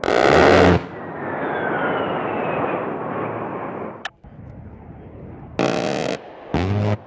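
Bursts of an A-10 Warthog's 30 mm GAU-8 rotary cannon firing, each a single buzzing "brrrt": one lasting under a second at the start, then two shorter ones close together near the end. Between them a long rumble with a falling whine, cut off abruptly about four seconds in.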